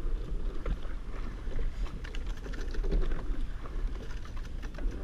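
Rowing boat under way: oar blades splashing through the water and oars clicking and clunking in their oarlocks at irregular moments, over wind rumble on the microphone.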